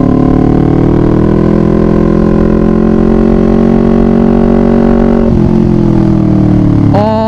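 2018 Kawasaki Ninja 250's parallel-twin engine running under way, its note rising slowly. About five seconds in, the note drops and then sinks gradually.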